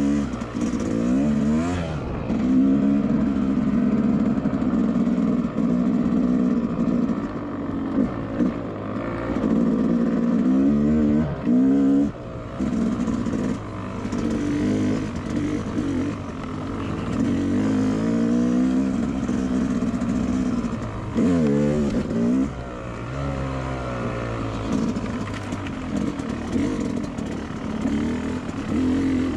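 Two-stroke dirt bike engine under way, its revs rising and falling again and again with the throttle.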